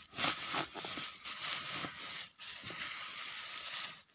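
Dry reed leaves and stalks rustling and crackling in irregular bursts as they are handled, spread and pressed down by hand onto a rubber tractor inner tube.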